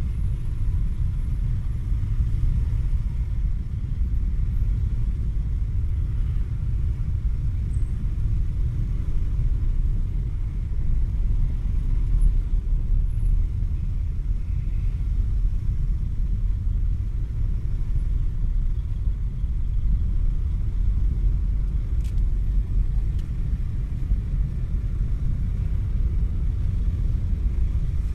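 Steady low rumble of motor traffic crawling through a dense jam of motorbikes.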